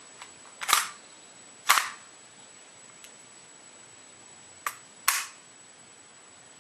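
KSC MK23 SOCOM gas blowback airsoft pistol: four loud sharp cracks of its gas blowback action, with a couple of quieter clicks between them.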